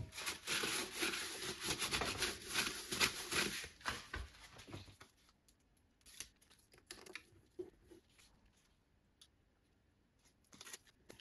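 Aluminium foil being rubbed and pressed down by hand over holes in a lathe's metal headstock casing: quick scratchy rubbing for about five seconds, then near silence with a few faint ticks.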